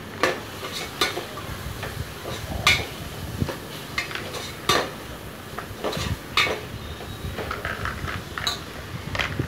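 Metal ladle scraping and clinking against the inside of an aluminium pressure cooker as thick masala is stirred, in irregular strokes.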